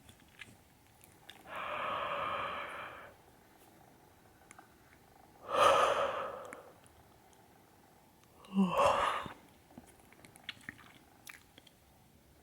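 A woman yawning and breathing heavily: three long breathy yawns, the last ending in a short low voiced sound, with faint mouth clicks between them.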